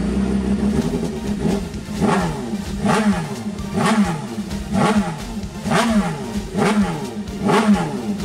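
Sport motorcycle engine idling and being revved in short throttle blips about once a second, each rising and falling back in pitch.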